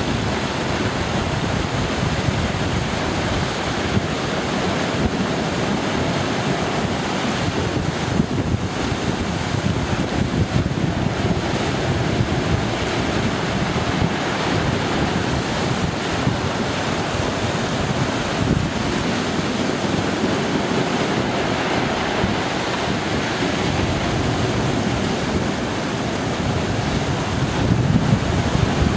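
Heavy storm surf crashing and washing over a stony shore in a continuous rumble, with wind buffeting the microphone. The breakers surge a little louder near the end.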